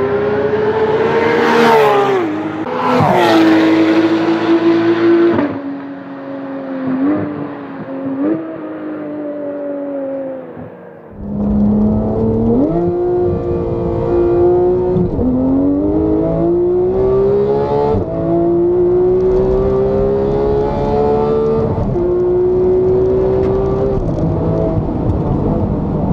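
Porsche 991 GT3's naturally aspirated flat-six with a Cup exhaust, first passing at speed with two sharp cracks, then heard from inside the cabin accelerating hard. Its pitch climbs in each gear and drops at each quick PDK upshift, four times.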